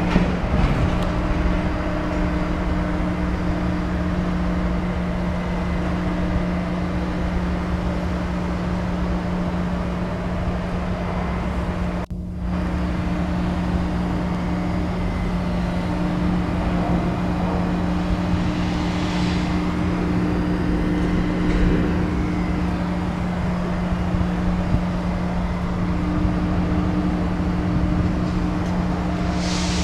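Cummins LTA-10G1 turbocharged inline-six diesel engine of a 200 kW generator set, running steadily at its governed 1,800 rpm with an even, constant hum.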